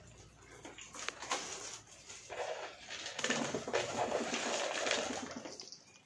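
A flock of domestic pigeons flapping their wings and scuffling as they feed, in a string of short rustling bursts that are loudest from about three to five seconds in.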